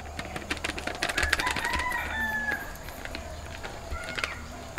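Chickens: a rooster crowing once, about a second in, among many short, sharp hen clucks.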